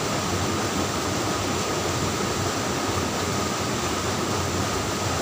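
Steady rush of stream water running over rocks, an even hiss that holds at one level throughout.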